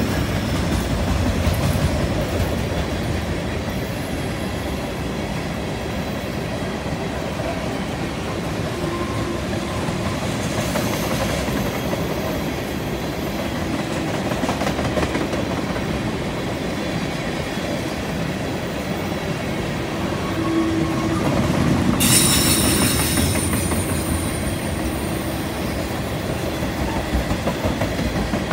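Freight cars (lumber-loaded centerbeam flatcars, then tank cars) rolling past on a curve, a steady rumble of steel wheels on rail with clickety-clack over the rail joints. Thin high-pitched wheel squeal runs through it and grows sharply louder about three-quarters of the way in.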